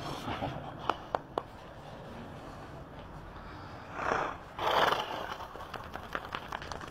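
A horse blowing out hard through its nostrils twice in quick succession, about four seconds in, after a few light knocks near the start. It is a release and relaxation snort after having its head and poll worked on.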